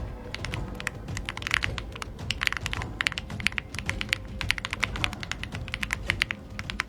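Typing on a mechanical keyboard with 80Retros HMX film switches: runs of quick keystrokes with short pauses between them.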